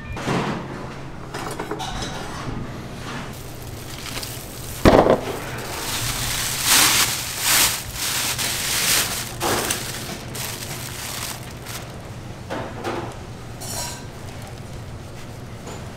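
Cling film crinkling and rustling as it is peeled off a large block of dough, with a sharp knock about five seconds in.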